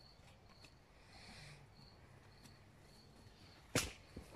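A metal garden rake striking bare soil: one sharp knock near the end, then a lighter one. Faint high chirping repeats in the background.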